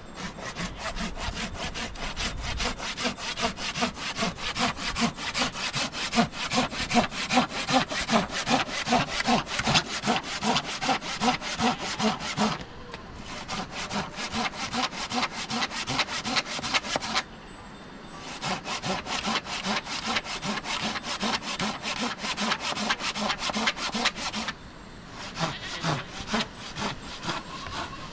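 Quick, rhythmic back-and-forth rasping strokes, each with a rise and fall in pitch. They stop briefly twice and then go on, duller near the end.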